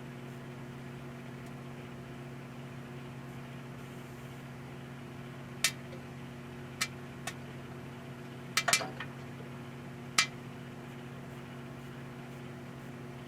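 Emerson microwave oven running with a steady hum while loose, unbagged popcorn kernels pop inside it one at a time: about six sharp pops scattered through the middle of the stretch, two in quick succession.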